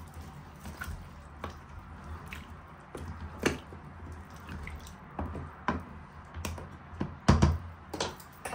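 A spoon stirring a simmering Brussels sprout and vegetable stew in a stainless-steel pot: wet sloshing with irregular clicks of the spoon against the pot, and a louder knock near the end.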